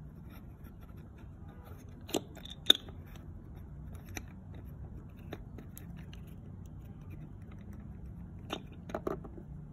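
Small plastic clicks and clacks of Peppa Pig toy figures and a toy seesaw being handled on a plastic playset: two sharp clacks about two seconds in, a few light ticks, and another cluster of taps near the end, over a faint low hum.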